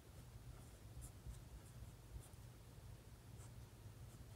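Faint scratching of a pen writing on paper, in a few short strokes.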